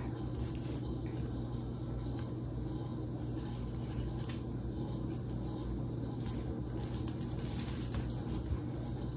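Faint scraping and clicks of a knife cutting the skin off a raw chicken breast on aluminium foil, over a steady low hum.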